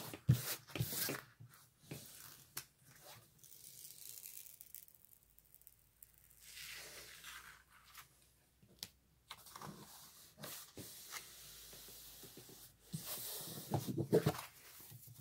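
Rustling and crinkling of a diamond painting canvas's plastic protective film and sheet under hands as the film is peeled back and the canvas smoothed flat, with a few sharp clicks near the start and a louder stretch of rustling near the end.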